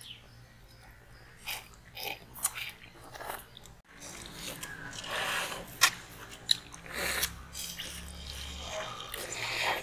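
People biting and chewing frozen homemade fruit ice pops: a string of short bites and mouth sounds, getting louder and busier after about four seconds.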